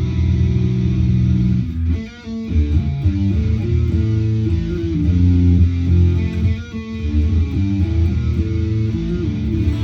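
Strandberg Boden Essential 6 electric guitar played through an amp, with heavy low notes and chords. It is held for the first couple of seconds, breaks briefly about two seconds in, then moves into a riff of changing notes.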